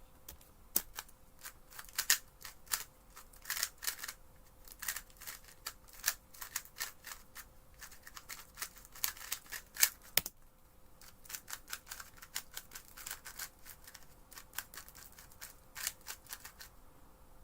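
X-Man Tornado V2M 3x3 speedcube, fitted with core-corner magnets, being turned fast during a speedsolve. The plastic layers give rapid, uneven clacking and clicking, with a short lull a little past ten seconds in.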